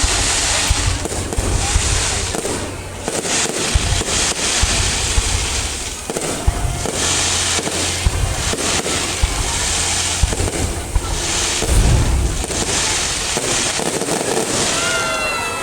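Fireworks going off in rapid succession: a continuous crackle with frequent deep booms and no real pause.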